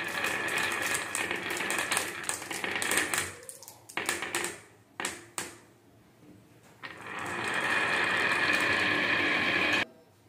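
Green glass marbles rolling down the wavy groove of a HABA wooden slope: a steady rolling rumble with clicks as the marbles knock against each other. The rolling dies away about three and a half seconds in, a few single clicks follow, then a second steady run of rolling starts about seven seconds in and cuts off sharply near the end.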